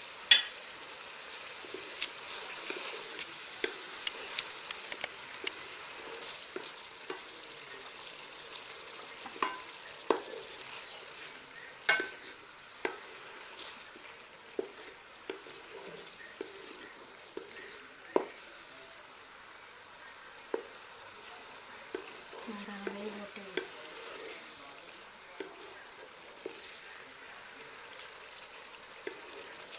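Chicken and spices frying in oil in a pot with a steady sizzle, while a spoon stirs it, knocking and scraping against the pot now and then; the loudest knock comes just after the start.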